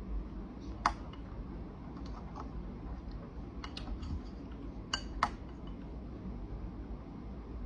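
A few sharp, light clicks and taps of tableware being handled at a meal: one about a second in, two close together near four seconds, and two more around five seconds, over a low, steady room hum.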